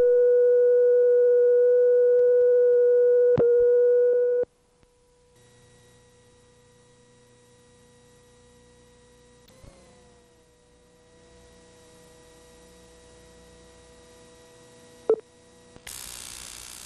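Steady line-up test tone on an analogue videotape, played over colour bars, with a click about three and a half seconds in; it cuts off suddenly about four and a half seconds in. Faint tape hiss and hum follow, broken by a few clicks, and near the end a louder hiss and hum comes in.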